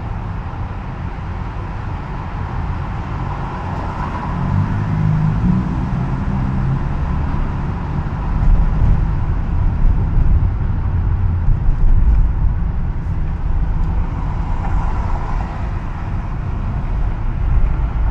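Road noise inside a moving car's cabin at highway speed: a steady low rumble of tyres and engine with a hiss over it, growing louder partway through.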